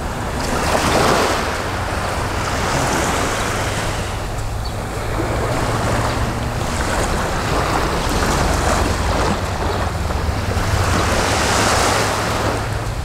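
Small sea waves washing onto the shore, swelling and falling back every two to three seconds, with a steady low rumble of wind on the microphone.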